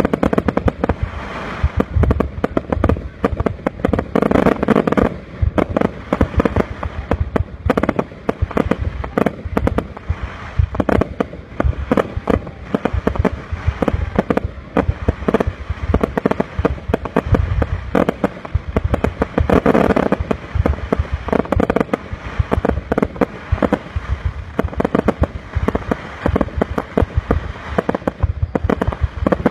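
Aerial fireworks going off in a rapid, unbroken barrage: shells launching and bursting overhead in dense, overlapping bangs and crackles.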